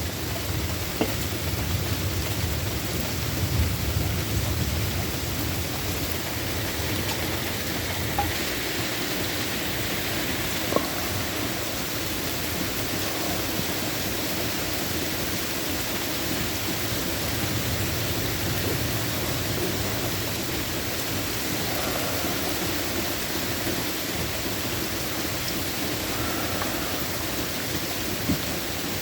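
Steady rain falling, with a low roll of thunder dying away over the first few seconds and a few sharp drips or taps against the hiss.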